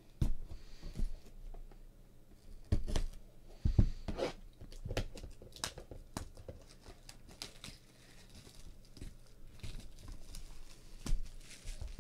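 Plastic shrink-wrap being torn and crinkled off a sealed box of trading cards, a run of irregular crackles with a few louder rips and taps.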